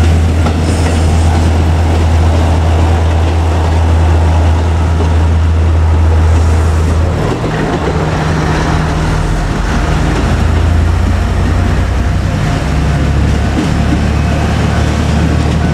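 JR Kyushu KiHa 200 diesel railcar running loud and close, a deep steady engine drone over rail and running noise. Its engine note drops and changes about halfway through.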